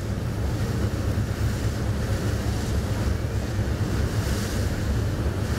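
A cargo ship's diesel engine rumbling steadily, with wind buffeting the microphone.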